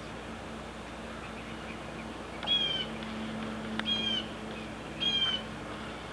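Three short, high-pitched animal calls, a little over a second apart, each falling slightly in pitch, over a steady low hum.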